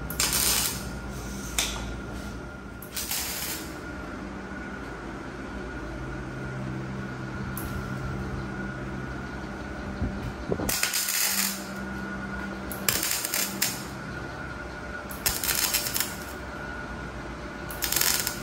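Stick (arc) welding of steel frame tubing: about six short crackling bursts, each under a second, as the rod strikes and lays tack welds. A steady low hum runs underneath.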